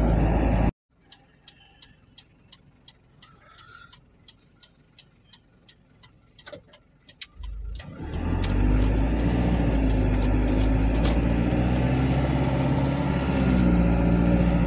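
Moving truck heard from inside the cab: steady engine and road noise, which drops away abruptly about a second in to a quiet stretch with light, even ticking about three times a second. About eight seconds in, the engine and road noise swell back up as the truck moves off and keeps driving.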